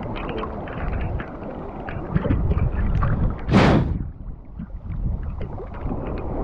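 Shallow seawater sloshing and splashing around people wading and handling a fishing net, with wind buffeting the microphone. A louder rushing splash swells and fades about three and a half seconds in.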